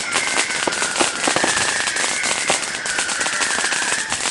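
Fireworks crackling: a dense, continuous run of rapid sharp pops and cracks. A steady high tone wavers slowly up and down under the crackle.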